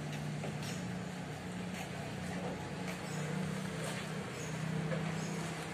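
Steady low hum of a motor vehicle engine running at idle, with a few faint crunching clicks from a cat chewing dry kibble.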